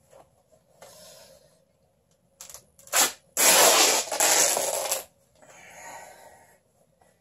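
Worn-out cloth pants being torn apart by hand: two short rips about two and a half and three seconds in, then a long, loud tear lasting about a second and a half, followed by a softer stretch of tearing and fabric rustle.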